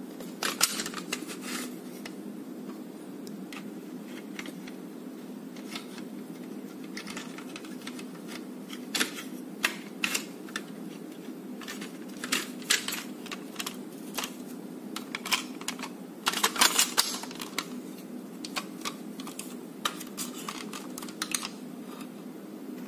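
Hard plastic parts of a Nerf Retaliator blaster clicking and tapping as they are handled and fitted into the shell. There are scattered clicks, with a denser run of rattling clicks about two-thirds of the way through, over a steady low hum.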